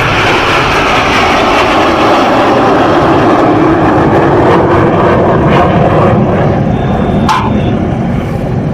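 Red Arrows BAE Hawk T1 jets making a low pass, their jet noise loud with a pitch that falls as they go by.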